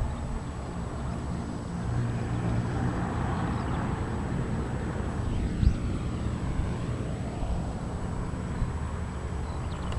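Zeppelin NT airship's engines and propellers running during warm-up: a steady low hum with a broader swell of propeller noise about two to four seconds in.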